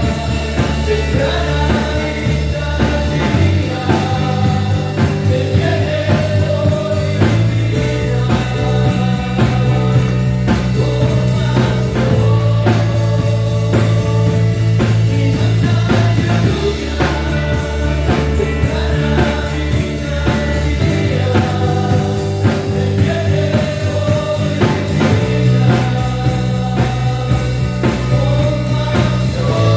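Christian worship music: a band with bass, electric guitar and drums plays a steady rock-style groove, with singing over it.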